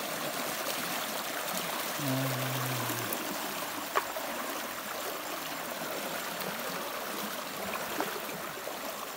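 River water rushing and churning through a gap in a makeshift bamboo-and-tarpaulin barrier, a steady stream sound. A brief low hum sits about two seconds in.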